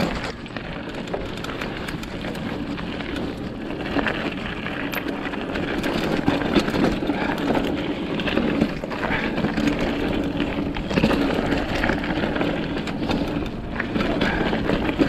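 Mountain bike riding down a rough dirt-and-rock trail: tyres crunching over the ground with many short knocks and rattles from the bike, over a steady low rumble.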